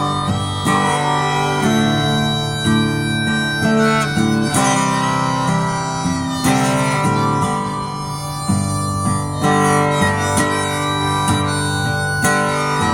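Harmonica playing a melody over a strummed acoustic guitar, an instrumental passage of a country-style song.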